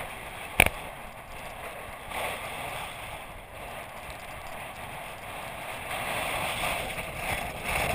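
Wind blowing over the microphone on an exposed sand dune, a rushing that rises and falls. There is one sharp knock about half a second in.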